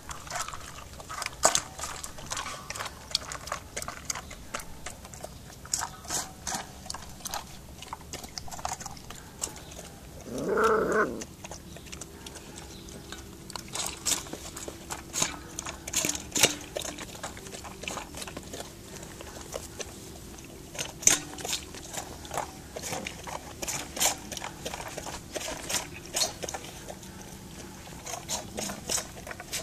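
A dog eating dry food from a bowl: repeated crunching, chewing and clicking of kibble. About ten seconds in, one short, loud dog vocal sound.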